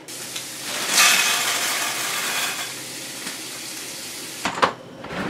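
Food sizzling in a hot pan on the stove, loudest about a second in and then dying down. A couple of sharp clatters of kitchenware come near the end.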